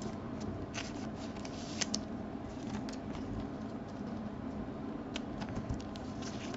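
Baseball trading cards being handled and slid through the hands, giving faint scattered clicks and rustles of card stock.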